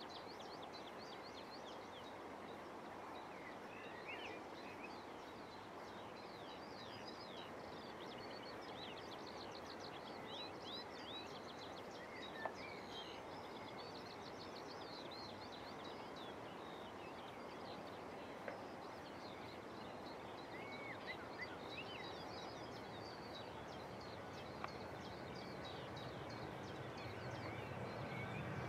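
Small birds singing almost continuously over a faint outdoor hum. Near the end the distant Boeing 737-800's jet engines come in as a rising rumble with a steady whine, spooling up for the takeoff roll.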